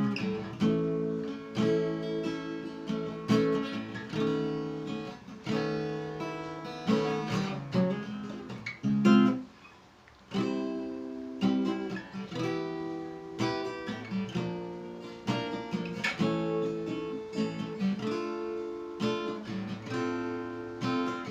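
D&D Django Jr. mahogany acoustic guitar strummed in power chords, each chord ringing out before the next. The playing stops for about a second roughly halfway through, then goes on.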